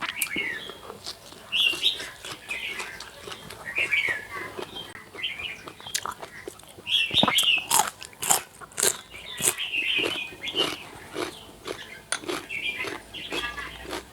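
Close-up chewing and mouth sounds of someone eating, with many short crisp crunches and smacks coming thickest about halfway through.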